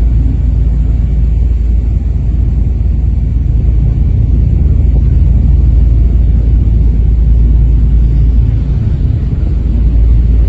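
Loud, steady low rumble aboard a ferry under way at sea.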